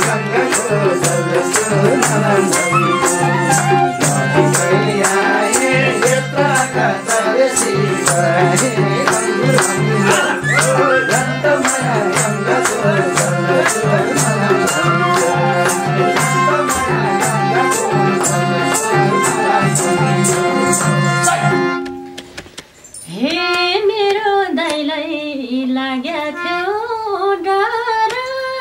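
Nepali dohori folk ensemble playing an instrumental interlude: harmonium with a hand-shaken rattle and drum keeping a steady beat. The band stops about 22 seconds in, and a woman's voice then begins singing alone.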